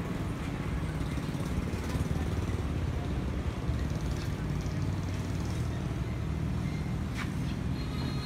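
Steady low rumble of city street traffic, with a single sharp click about seven seconds in.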